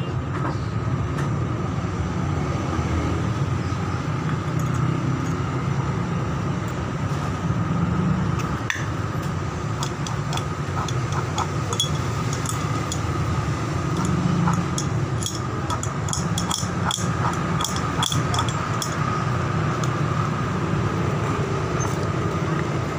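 Metal pump parts and tools clinking in scattered, irregular clicks, heaviest in the middle, as a pressure-washer pump is reassembled by hand, over a steady low background hum.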